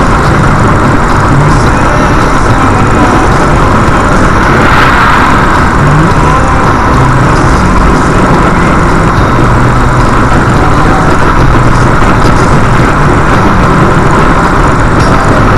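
Steady, loud road noise of a car cruising at highway speed, heard from inside the cabin: engine, tyres and wind together, with no distinct events.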